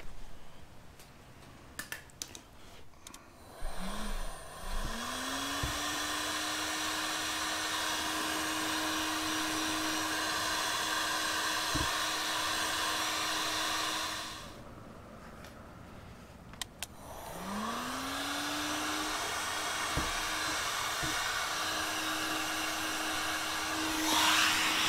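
Ryobi heat gun running in two stretches, used to shrink heat-shrink tubing over soldered wire joints. Each time its motor whine rises as it spins up, about four seconds in and again about seventeen seconds in, then holds steady under a fan hiss. The first run cuts off about fourteen seconds in.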